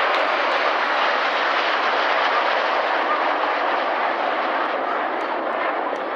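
BAE Hawk T1 jets in close formation, their Adour turbofan engines giving a steady rushing jet noise that eases slightly near the end.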